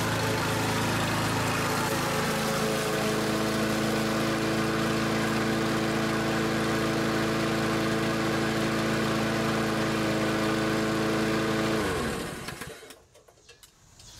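Walk-behind rotary lawn mower's small single-cylinder engine running steadily. About twelve seconds in it is shut off, its note falling quickly as it winds down to a stop.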